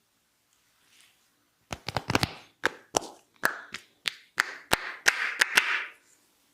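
A barber's hands working a client's head during a head massage: an irregular run of about a dozen sharp slapping strikes, starting nearly two seconds in, with rubbing on skin and hair between them near the end.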